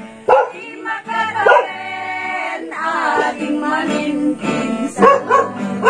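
An Ilocano Christmas carol sung by a single voice in long, held notes over a steady instrumental backing.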